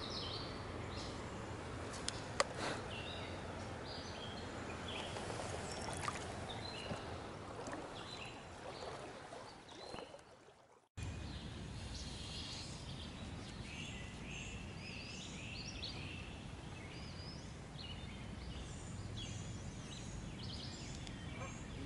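Steady rush of flowing creek water with small birds chirping over it. The sound fades almost to silence about ten seconds in, then cuts back in suddenly a second later.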